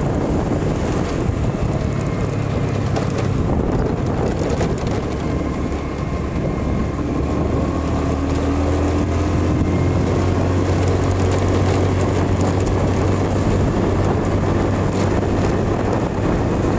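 Small motorcycle's engine running steadily at cruising speed, heard from the rider's seat, with wind noise on the microphone.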